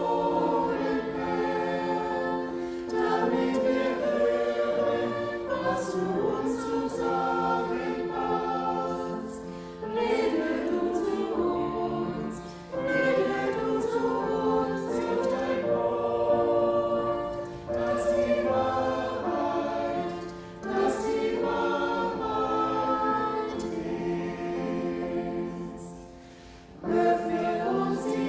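A choir singing a hymn in sustained phrases, with short breaks between the lines.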